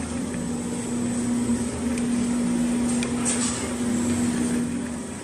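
Machine running with a steady hum, which stops near the end.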